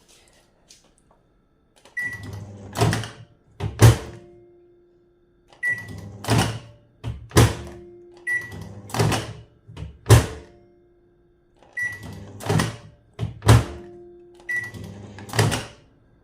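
Microwave oven cycled five times in a row: each time a short high keypad beep, the oven humming briefly as it runs a one-second setting, then two loud clunks of the door being opened and shut.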